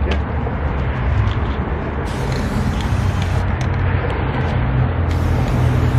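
Aerosol spray-paint can hissing in two bursts, about a second each: one about two seconds in and another near the end, as black paint goes onto a metal stair railing. A steady low rumble runs underneath.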